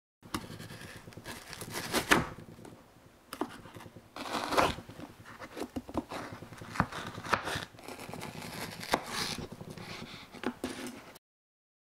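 Serrated knife sawing through a slab of frozen yogurt bark topped with kiwi, banana and almonds, on a wooden cutting board. Scraping crunches are broken by five sharp cracks as pieces snap off, the loudest in the first half.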